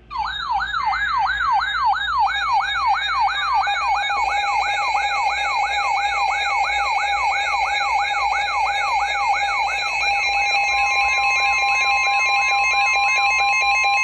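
Electronic siren in a fast yelp, its pitch sweeping up and down about three times a second, sounded as an emergency alert signal. A steady tone joins it about two seconds in, and a second, higher steady tone comes in near the end.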